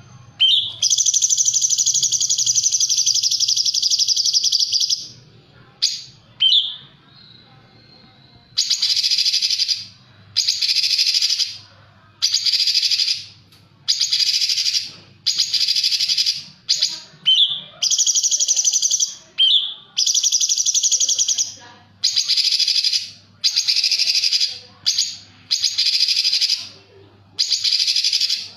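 Cucak cungkok singing its harsh, buzzy 'tembakan' bursts: one long burst of about four seconds, then a dozen or so shorter bursts repeated about every two seconds, with a few quick rising notes between them.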